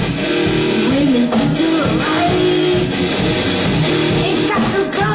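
Live rock band playing loud, strummed electric guitar with a steady beat.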